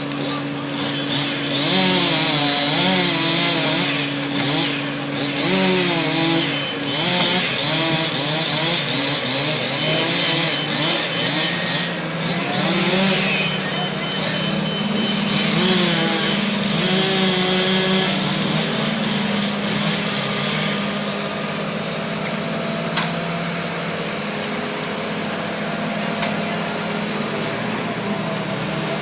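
Chainsaw revving up and down and cutting wood, over a steady engine drone. The saw stops about two-thirds of the way through, leaving only the engine running.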